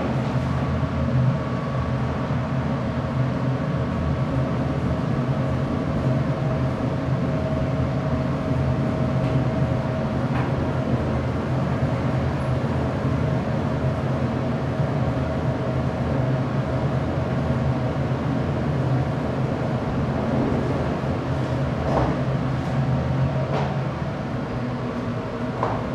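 Steady rumble and hum of a ThyssenKrupp high-speed traction elevator travelling down at speed, heard from inside the cab, with a faint steady whine over it. The noise eases slightly near the end.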